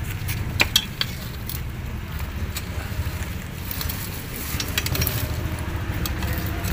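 A metal snake hook poked and dragged through dry leaves and twigs by a brick pile: scattered crackles and light clicks, a cluster about a second in and more near the middle, over a steady low rumble.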